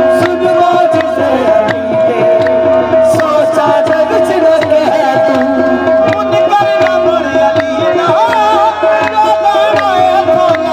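Live qawwali: a lead singer's voice over harmonium, with a steady held harmonium note, a hand drum keeping a quick rhythm and handclaps.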